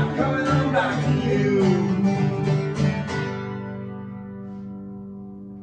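Acoustic guitar and electric archtop guitar strumming the song's closing chords. The last chord is struck about three seconds in and left to ring, fading away.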